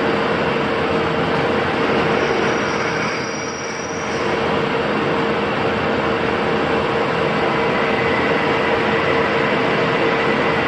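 Steady mechanical noise with a constant hum running through it, easing off briefly about three and a half seconds in.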